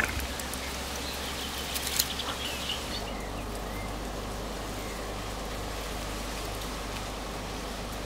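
Steady riverside outdoor background hiss with faint bird chirps, and a few small clicks about two seconds in.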